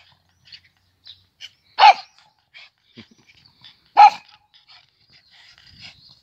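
A dog barking: two single short barks about two seconds apart.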